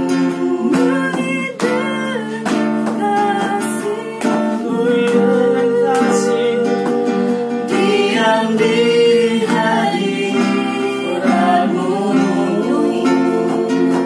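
A small group of men and women singing an Indonesian worship song together to a strummed acoustic guitar.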